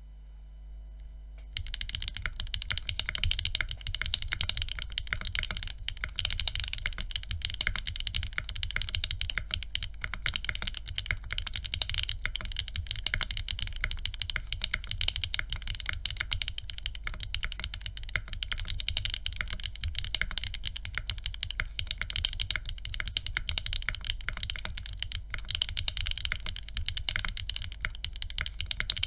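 Continuous fast typing on a custom mechanical keyboard with lubed KTT Strawberry V2 linear switches in a red aluminium plate and GMK keycaps, starting about a second and a half in. A steady electrical buzz runs underneath.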